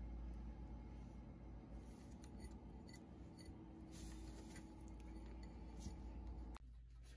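Faint scattered clicks and scratches from a blue-tongued skink feeding from a ceramic dish of superworms.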